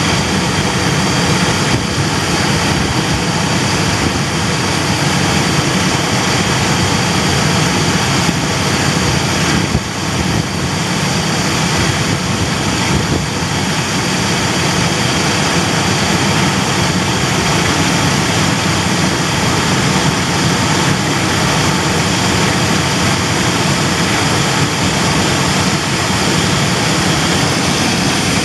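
Chevy Astro engine idling steadily up close, running with the radiator cap off so head gasket sealer can be poured in and circulated through the cooling system. The level dips briefly about ten seconds in.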